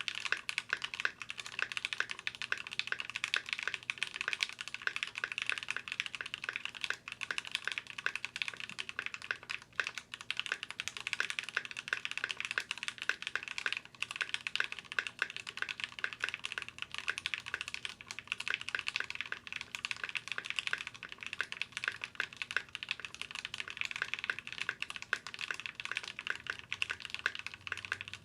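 Continuous fast typing on a Keychron Q6 full-size aluminium mechanical keyboard with factory-lubed Gateron G Pro Red linear switches. The case resonates from the empty space under the PCB, most noticeable on the navigation cluster, numpad and enter key.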